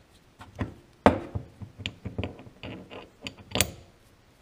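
Steel mill parts, a slotted castle nut and a dial flange, being handled and set down on a wooden workbench: a string of sharp knocks and clinks, the loudest about a second in.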